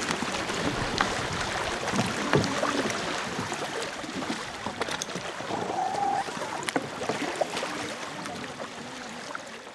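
Paddling an inflatable canoe: paddle blades dipping and splashing in the river, with scattered knocks against the boat over a steady wash of water, gradually fading out near the end.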